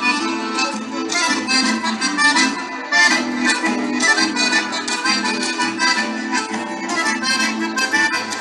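Accordion-led music with a steady, regular beat, played for a rasguido doble dance.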